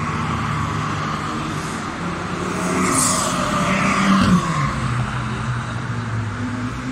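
Sports cars driving past one after another. The loudest, about four seconds in, is an Abarth 595's turbocharged four-cylinder engine passing close, its pitch dropping as it goes by.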